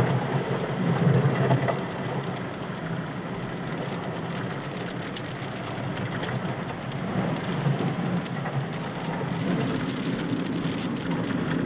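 A vehicle driving on a flooded dirt road: the engine runs under a steady rush of tyres through water and mud. Muddy water sprays against the body, loudest in the first couple of seconds.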